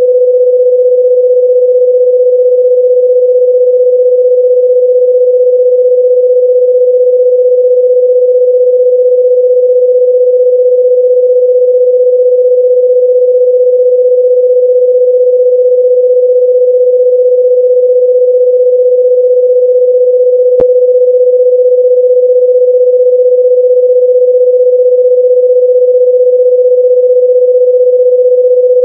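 A loud, steady electronic sine tone held at one mid pitch without a break. There is a brief click about twenty seconds in.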